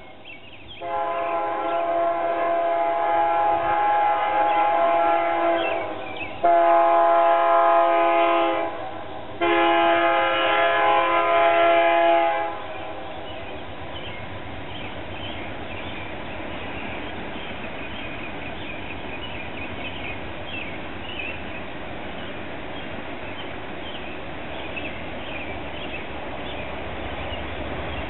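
BNSF diesel locomotive's air horn blowing three long blasts, the last cutting off about twelve seconds in. It is followed by the steady rumble of the approaching train, whose low end grows slightly near the end.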